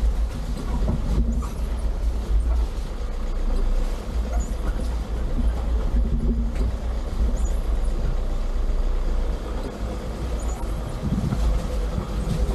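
Off-road SUV driving over a rough trail: a steady, low engine and drivetrain rumble with road noise over it.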